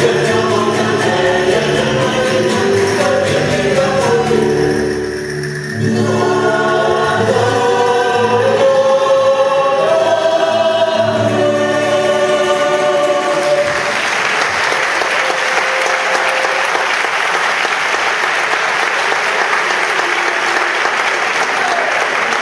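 Music with group singing plays until about two-thirds of the way through, then stops and an audience applauds steadily.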